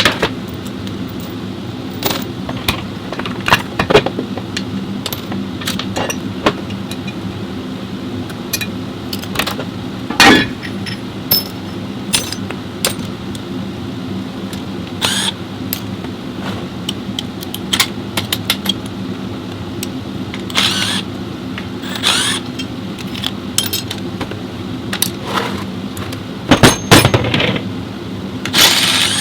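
Metal tools and parts clinking and knocking at irregular intervals over a steady mechanical hum, as in hand work on a vehicle transmission.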